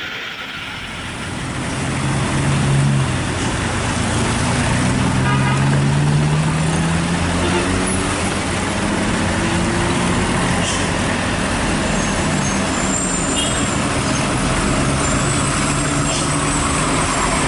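Heavy truck engine running under load, its pitch rising and falling, over a loud steady rushing noise.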